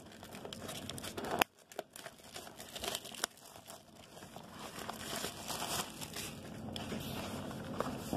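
Plastic shrink-wrap being torn and crinkled off a sealed cardboard box of trading cards, in irregular crackles. There are a couple of sharp clicks, about a second and a half and three seconds in.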